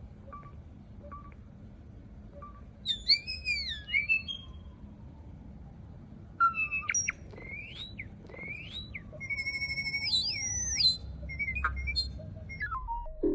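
A bird calling in varied, elaborate whistles: sweeping glides up and down, a held note, looping slurs and short chirps. One phrase comes about three seconds in, and a longer run starts halfway through.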